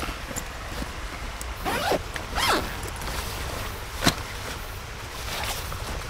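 Zipper on a fabric hammock carry bag pulled open in two long strokes about two seconds in, followed by one sharp click about four seconds in. A mountain stream flows steadily underneath.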